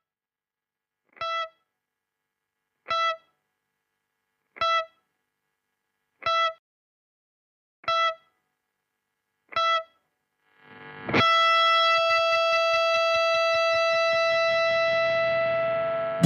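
Electric guitar playing one high note, plucked six times about every second and a half with silence between. About eleven seconds in, a long note swells in and rings out steadily.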